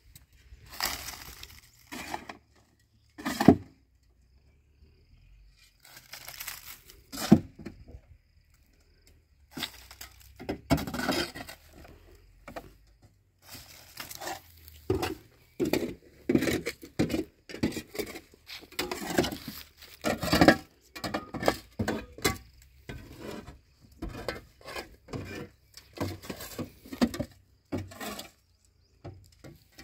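A shovel scraping and scooping manure in a pickup truck's metal bed, making irregular scrapes and clunks as the loads are tipped out.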